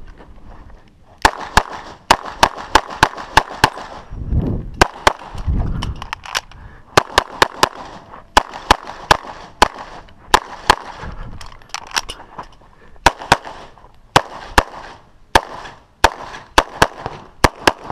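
Rapid strings of 9mm pistol shots from a CZ 75 SP-01, starting about a second in, fired in quick runs of several shots with short breaks between strings.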